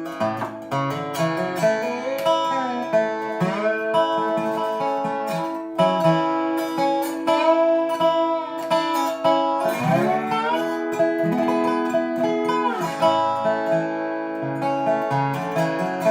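Dobro resonator guitar, capoed, played with a steel bar: picked notes and chords that slide in pitch, with a rising slide about ten seconds in.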